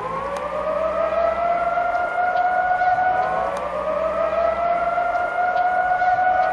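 Outdoor civil-defence warning siren wailing: the tone rises in pitch and then holds steady, sounding the tsunami alarm over the harbour. A second rising wail joins about two seconds in.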